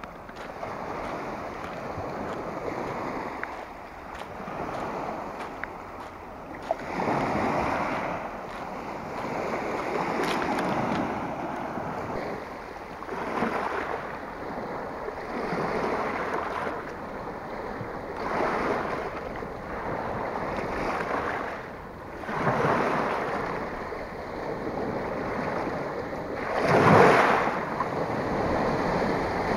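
Small sea waves breaking and washing over a pebble shore. They come in swells a few seconds apart, and the loudest wash falls near the end.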